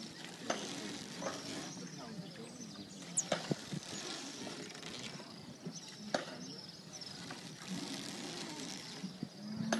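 Wooden oars working in their rowlocks as a boatman rows, giving a sharp knock every few seconds over water noise and a background of distant voices.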